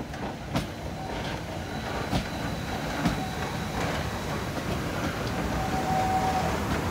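Bayerische Zugspitzbahn rack-railway train running, a steady rumble growing slowly louder, with a few sharp clanks and a brief thin squeal near the end.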